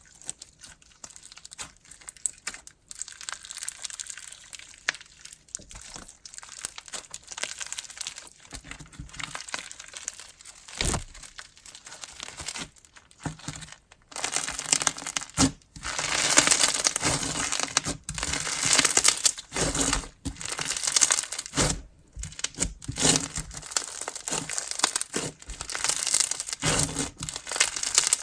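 White glue slushie slime being squished, stretched and folded by hand, giving a crackly, crinkling sound; the handling gets louder and busier about halfway through.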